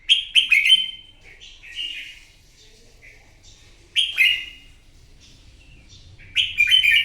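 Red-whiskered bulbul singing: four short, loud warbled phrases with pauses between, in the bird's competitive song.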